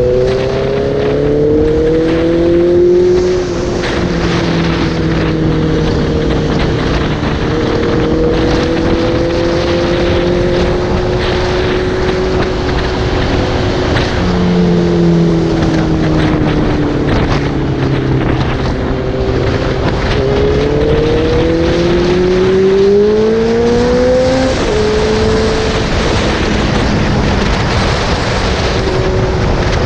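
Motorcycle engine heard from the rider's seat, its pitch slowly rising and falling with the throttle, then climbing steadily until it drops off suddenly at a gear change about three-quarters of the way through. Wind noise on the microphone runs under it.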